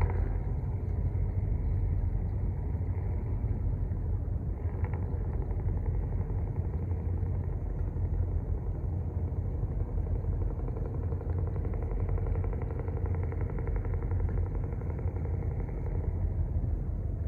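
Engine of a river cargo ship running with a steady low drone, a faint higher hum joining it in the second half.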